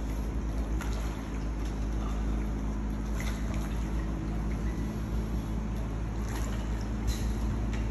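Hot tub water churning with a steady pump hum underneath, and a few short splashes and knocks as a person climbs out onto the wet deck.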